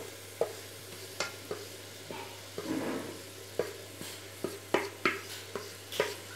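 Wooden spatula tapping and scraping as it pushes spice powders off a plate into an aluminium pressure cooker: about ten sharp, irregular taps. Under it, a faint steady sizzle of onion-tomato masala frying in oil.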